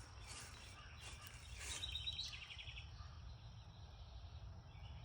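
Quiet outdoor background with a steady low rumble and a few soft rustles. About two seconds in comes a short, rapid, high-pitched chirping trill from a bird.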